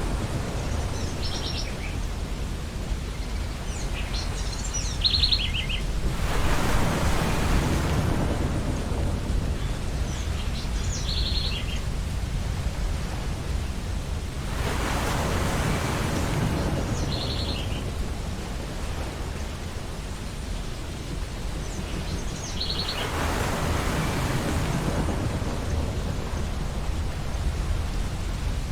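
Ocean surf on a beach: a steady low rumble with three waves breaking and washing in, each about eight seconds apart. Short calls from seagulls ring out every few seconds over the surf.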